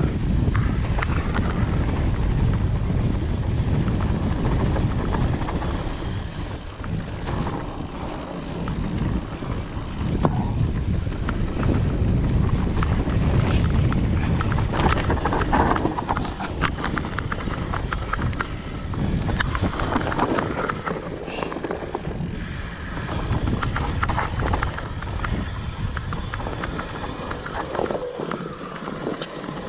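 Specialized Turbo Levo electric mountain bike riding down a dirt forest trail: a steady rumble of the tyres over dirt and roots, with rattles and knocks from the bike over the bumps.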